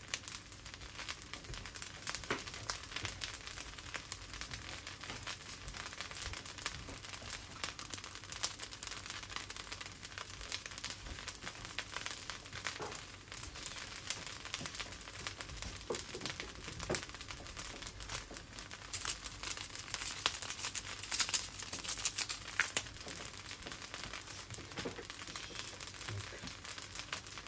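Fried rice sizzling and crackling in a black wok: a steady fine crackle with scattered louder pops.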